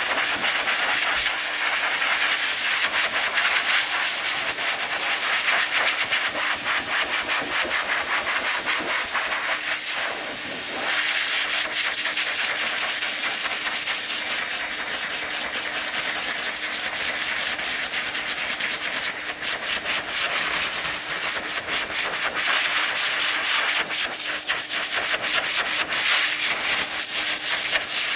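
Pet blaster (high-velocity dog dryer) running steadily, its air jet blowing into a large dog's thick coat: a loud rush of air over a steady motor hum. The sound dips briefly about ten seconds in.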